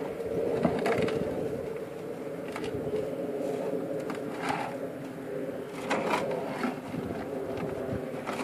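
Black Angus steers eating grain from plastic troughs: crunching with scattered knocks of muzzles against the troughs, over a steady low hum.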